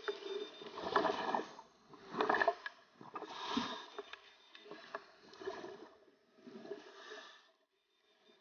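Scuba regulator exhaust bubbles gurgling past the underwater camera, a run of bubbly bursts about a second apart that grow weaker and stop near the end.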